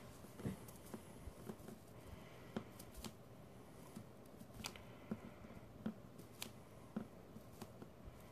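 Fingernails picking and scratching at the edge of a dried Titebond II wood glue film on a vinyl record, trying to lift it to peel it off. Faint, irregular clicks and scratches, about one or two a second.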